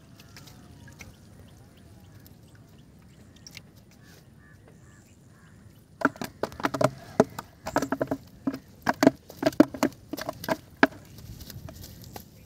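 Waterfowl calling in a quick, loud series of short harsh calls, starting about six seconds in and dying away near the end.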